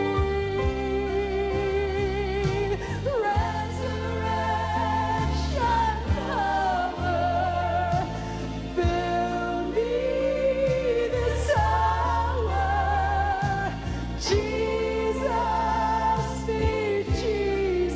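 Live gospel ballad: a woman's solo voice sings long, held notes with a wide vibrato over instrumental accompaniment with a bass line.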